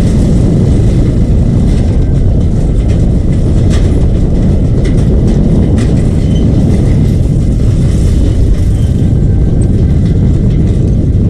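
Motorcycle being ridden, heard through an action camera's microphone. Steady, loud wind rush and engine noise fill the low end, with a few faint clicks.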